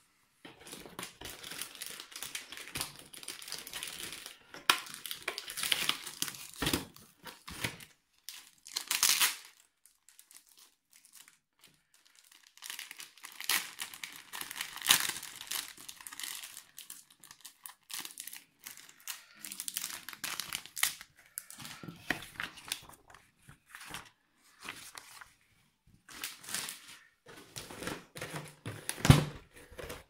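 Clear plastic packaging film crinkling and rustling as it is handled and pulled out of a cardboard box, in irregular bouts with a short lull. A sharp thump against the box near the end.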